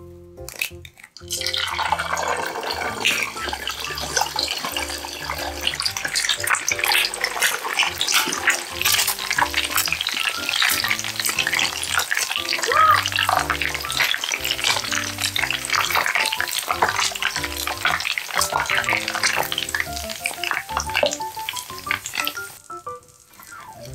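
Eggs deep-frying in hot oil in a frying pan: dense, loud crackling and spattering that starts about a second in and stops shortly before the end.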